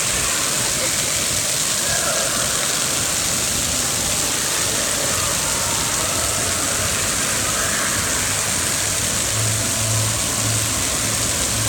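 Steady rush and splash of water pouring down a water slide's run-out and spilling off its end.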